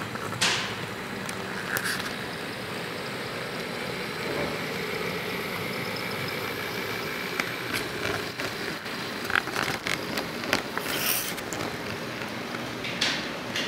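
HO-scale model train running past, its locomotive motor and wheels on the track making a steady rolling hum, with scattered sharp clicks.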